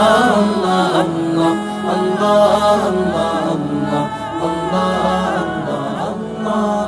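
Vocal music of a Bengali Islamic gojol (devotional song): layered voices chanting a flowing melody.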